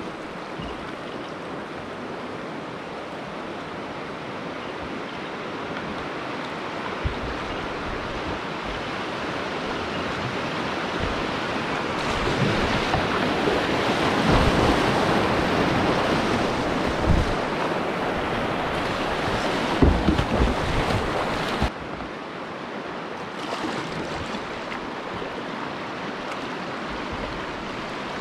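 Rushing whitewater river, building and splashing loudest as a kayak runs through a rapid, with a few sharp knocks. It then drops suddenly to a steadier, quieter rush of the river.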